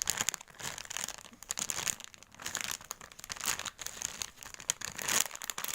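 Plastic crinkling and rustling as a squishy toy is handled and squeezed: irregular crackles that come and go throughout.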